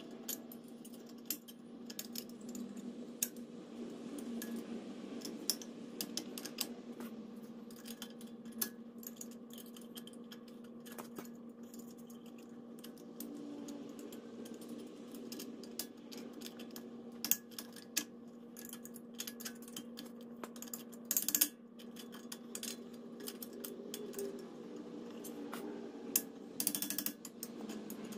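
Scattered light metallic clicks and scrapes as the front brake caliper's spring clip is worked into place by hand, over a steady low hum. A few of the clicks are louder than the rest.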